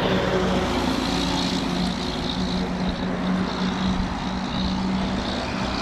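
Large fire-truck diesel engine running close by with a steady low drone, over road noise.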